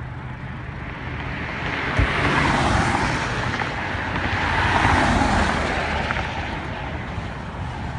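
Freeway traffic passing close by: two vehicles go by with a rush of tyre and wind noise, the first swelling in about two seconds in and the second around five seconds in. A brief low thump comes as the first one arrives.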